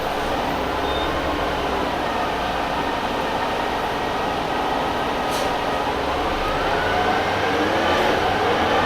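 Orion VII CNG transit bus with a Detroit Diesel Series 50G engine and Allison B400R automatic transmission, running with a steady drivetrain hum. From about six seconds in, a whine rises in pitch as the bus accelerates.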